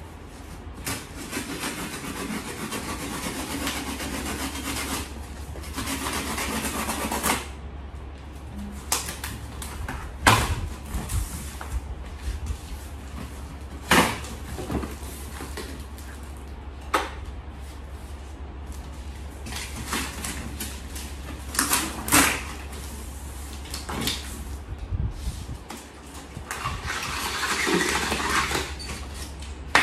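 Cardboard scraping and tearing as a long flat-pack furniture box is opened, with several sharp knocks as the panels inside are handled and slid out.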